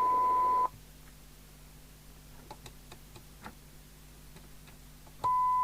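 The 1 kHz test tone received and played by a Midland 4001 FM CB radio stops sharply about two-thirds of a second in as the squelch closes, leaving faint scattered clicks. Near the end the tone cuts back in abruptly as the squelch opens again during a squelch test with a signal generator.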